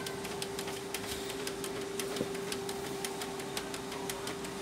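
Canon PIXMA MP287 inkjet printer's mechanism running as it is powered up for a test: a steady motor whine with a rapid, even ticking of gears, about four ticks a second.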